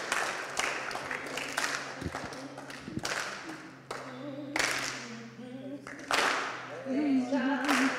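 Congregation applauding, the clapping thinning out, with a few louder outbursts about halfway through. Near the end a voice sings a held note with a wavering vibrato.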